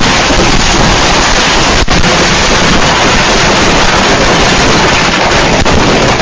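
A pile of fireworks going off together on a patio, a continuous loud hiss and crackle that overloads the security camera's microphone, with a sharp crack about two seconds in and a fainter one near the end.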